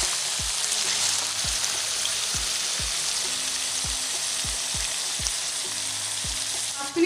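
Chicken pieces sizzling steadily in hot mustard oil with fried onion and spices in a kadai, being browned over a low flame. Soft low knocks come about twice a second.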